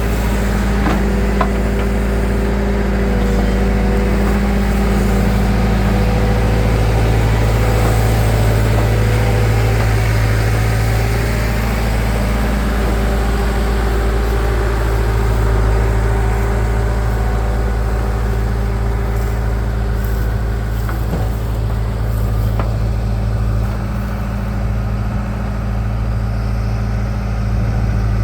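Diesel engines of a backhoe loader and a farm tractor running steadily at a nearly constant speed, with a deep hum and a few faint knocks.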